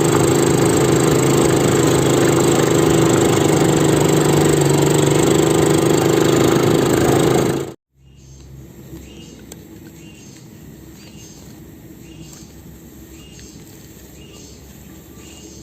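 A small engine running steadily under a loud rushing noise, cut off abruptly about eight seconds in. After that comes much quieter outdoor ambience, with a faint chirp repeating about once a second.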